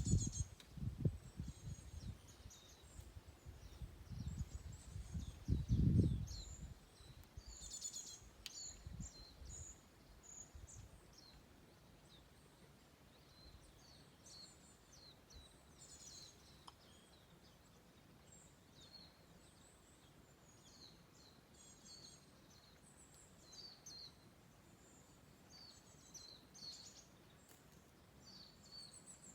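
Wild songbirds calling: many short, high chirps and trills come one after another throughout. A low rumble, like wind on the microphone, gusts over the first six seconds and then dies away.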